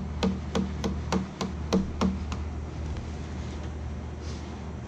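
A container of ethanol-and-water compass liquid being shaken by hand, knocking sharply about three times a second. The knocks stop about two and a half seconds in.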